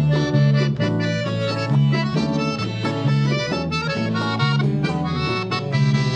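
Gaúcho band music led by accordion over a steady, repeating bass rhythm, instrumental with no singing.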